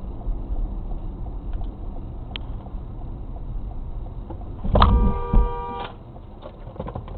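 Steady road and engine rumble inside a moving car. About two-thirds of the way through, a car horn sounds for about a second as an SUV pulls out close in front, with a low knock partway through.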